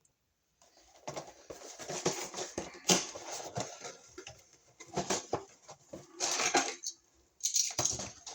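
Irregular clicking, tapping and rustling of a new wall outlet being handled, with a short pause about seven seconds in.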